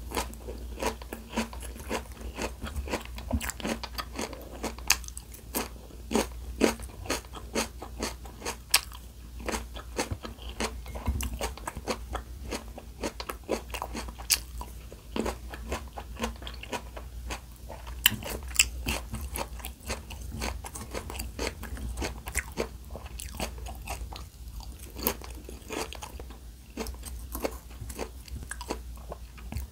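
A person chewing crunchy food close to the microphone: dense, irregular crunches and bites throughout, as in an eating (mukbang) ASMR recording.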